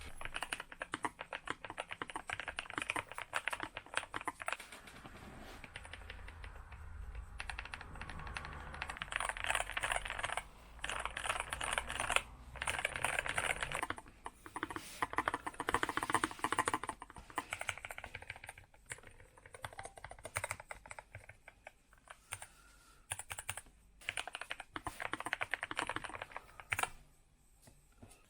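Typing on a Nuphy Air60 V2 low-profile mechanical keyboard: runs of rapid key clicks, broken by several short pauses.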